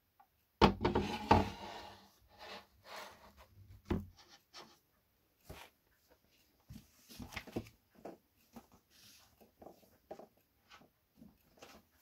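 Model display-stand base being set down on a wooden table: a loud clatter with some scraping about half a second in, a sharp knock near four seconds, then lighter clicks and rubbing as it is handled.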